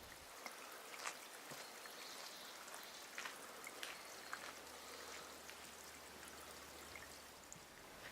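Faint trickle of running water, a steady hiss with scattered small irregular drips and ticks.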